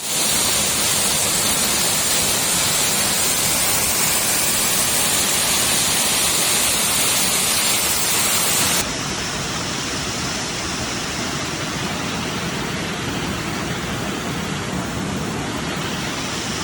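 Waterfall, a steady rush of falling water. About nine seconds in it cuts abruptly to a slightly quieter, less hissy rush.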